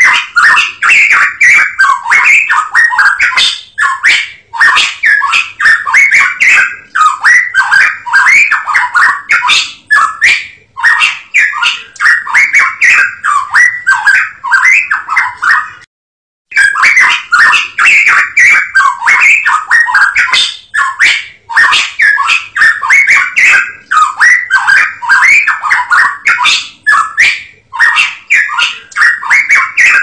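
A cucak emas papua songbird singing a fast, continuous stream of chattering, whistled notes, broken by a short pause about sixteen seconds in.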